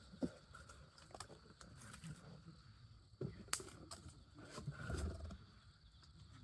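Wood campfire crackling, with scattered sharp pops and a low rumble swelling about five seconds in.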